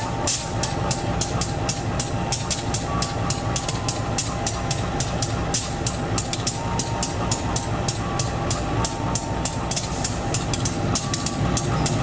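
Passenger train with its diesel locomotive moving through a station: a steady low rumble under regular wheel clacking, about four to five clicks a second.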